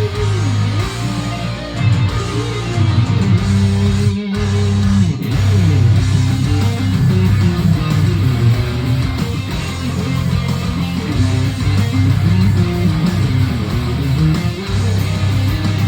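Heavy metal instrumental led by electric guitar, with low bass notes underneath and a short break about four seconds in.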